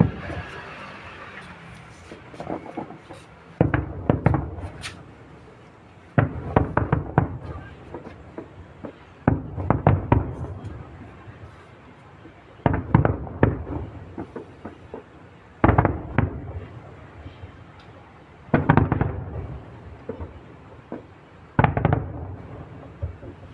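Fireworks display: aerial shells bursting in volleys of several bangs and crackles. Each volley lasts about a second and they come roughly every three seconds, seven in all.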